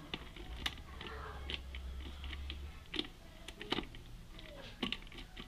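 Irregular light clicks from a multi-angle screwdriver being handled and adjusted, its click mechanism being worked into position. About a dozen clicks, two of them sharper than the rest.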